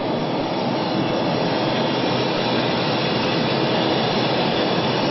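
Airliner jet engines and rushing air heard inside the passenger cabin as a steady, unchanging noise, shortly after takeoff.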